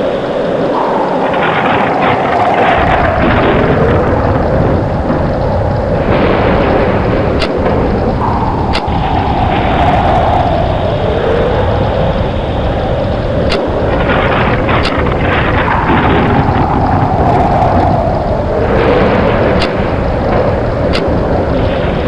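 Tornado sound effect: loud, constant rumbling wind with a howling tone that falls in pitch, coming round again about every seven and a half seconds. Short sharp cracks come in pairs every six seconds or so.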